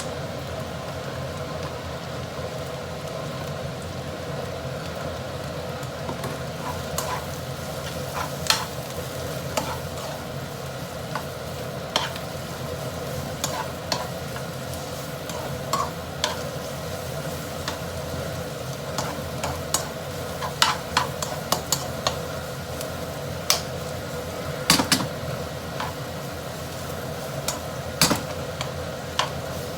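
Food sizzling as it is stir-fried in a pan, with a spatula clinking and scraping against the pan again and again, over a steady hum.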